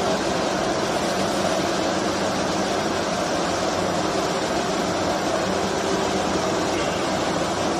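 Steady drone of wire-processing machinery running in a large factory hall: an even mechanical noise with a few faint steady hums underneath, unchanging throughout.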